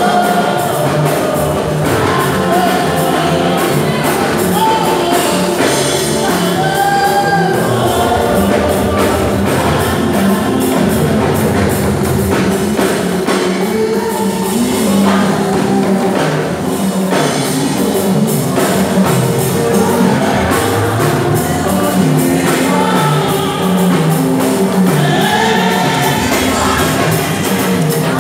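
Live gospel praise music: a lead singer and backing vocalists singing through microphones over a band with a steady drum beat.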